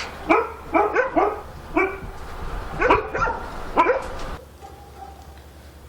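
Dog barking: about seven short, sharp barks in quick, uneven succession, stopping about four and a half seconds in.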